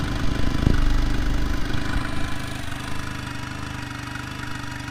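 Yamaha 15 hp four-stroke outboard engine running, briefly louder about a second in, then running steadily and a little quieter. It is running with no cooling water turned on to its water pump.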